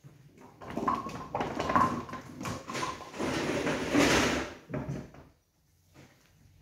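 Nine-pin bowling lane's automatic pinsetter clearing the fallen pins and setting them up again: a run of mechanical rumbling and clattering knocks lasting about four and a half seconds, loudest about four seconds in.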